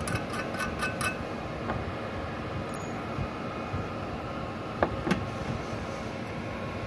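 A thin steel wire tapping on a freshly welded steel joint: a quick run of light metal clinks in the first second, about five a second. A few single knocks follow over steady background noise.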